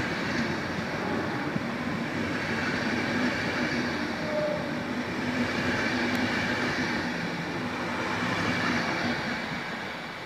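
Trenitalia passenger train's coaches rolling past on the rails, a steady rumble of wheels and running gear that fades off near the end as the rear of the train moves away.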